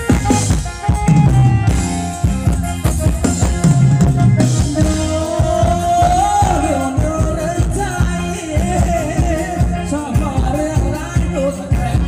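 Live band playing Thai ramwong dance music: a drum kit keeps a steady beat under electric guitar and bass, and a wavering lead melody comes in about four to five seconds in.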